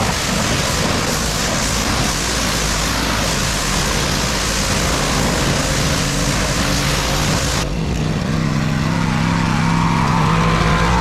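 Pressure washer spraying water onto a car, a loud steady hiss. Near the end the hiss thins and the washer's motor hum comes forward.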